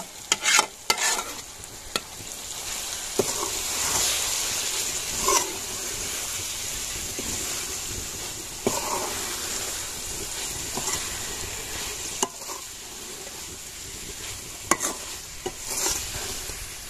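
Deboned fried fish tipped from a metal bowl into a karahi of hot tomato masala, with a clatter of metal in the first second, then sizzling steadily while a metal ladle stirs and scrapes the pan, clinking against it now and then.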